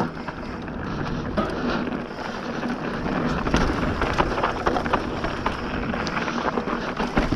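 Bird Zero AM hardtail mountain bike rattling over rough, dry trail at speed: tyres rolling on dirt and stones with a steady run of knocks and clatters from the bike, and wind on the microphone.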